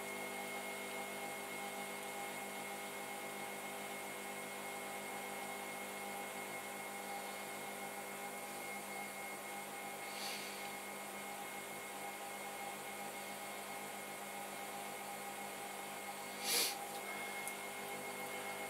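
Electric pottery wheel motor running with a steady hum and a thin high whine while wet clay is shaped on it. A faint short swish comes about ten seconds in, and a louder brief rush of noise near the end.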